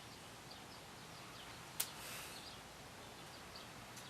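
Faint bird chirps, short high calls scattered throughout over a steady background hiss, with one sharp click a little under two seconds in.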